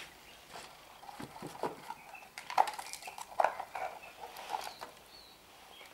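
Scooter air filter parts being handled: a scattered run of light clicks and knocks.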